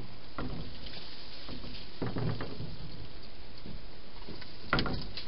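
Wild hedgehog feeding at bowls inside a plastic feeding box: irregular clicks, knocks and scrapes in three short clusters about two seconds apart, over a steady hiss.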